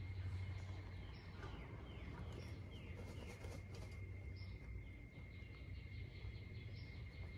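Faint bird chirping: a run of short, falling chirps in the middle and a few more later, over a steady thin high tone and a low hum.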